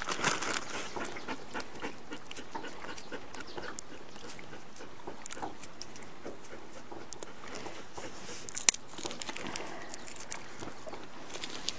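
Small sounds from a dog in a boat, with scattered light clicks and rustles. One sharp knock comes a little under nine seconds in.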